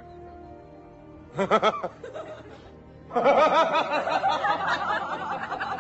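Soft sustained music notes, then a short burst of laughter about a second and a half in. From about three seconds in, a man laughs steadily on.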